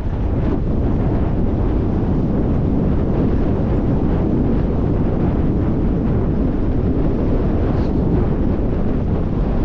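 Wind buffeting the microphone: a steady, loud rushing noise, heaviest in the low range.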